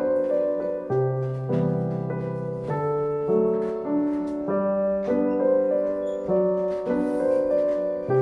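Background piano music: a melody over held bass notes and chords that change every second or two.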